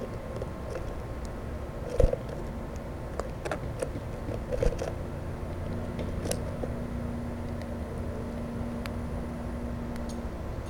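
Scattered sharp taps and knocks of birds pecking seed and landing at a Plexiglas bird feeder, the loudest knock about two seconds in, over a steady low background rumble with a low hum joining about halfway through.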